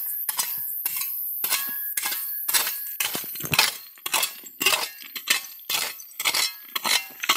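Metal blade of a small digging shovel chopping into stony, gravelly soil: sharp clinking strikes about two to three times a second, some ringing briefly as the blade hits stones.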